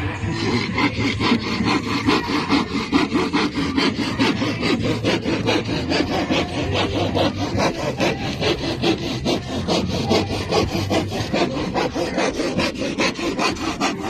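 Handsaw cutting through a plywood formwork sheet in quick, steady back-and-forth strokes.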